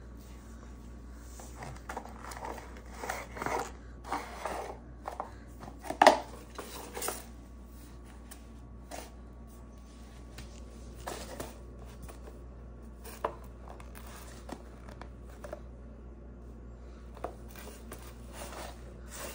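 Scattered rustling, scraping and tapping as a baby handles a small object on a tile floor, with one sharp knock about six seconds in and only occasional clicks later on.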